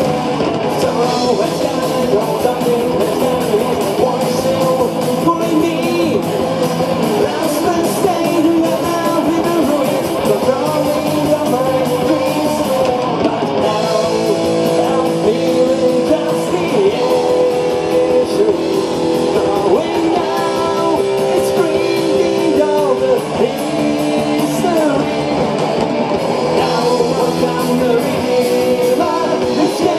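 Live speed metal band playing: electric guitars, bass guitar and drum kit, with sung vocals. Long held notes ring out from about halfway through.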